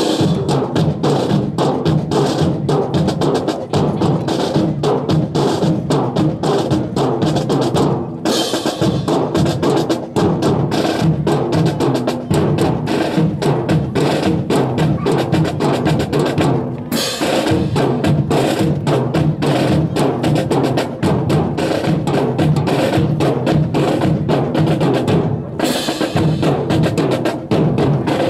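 A marching drum section plays a continuous cadence on snare and bass drums, with dense rapid strokes. It breaks off briefly three times, about 8, 17 and 25 seconds in.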